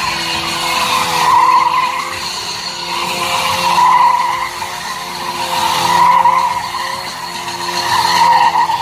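Motorcycle tyre squealing on pavement during stunt riding, the squeal swelling and easing about every two seconds over a steady engine hum.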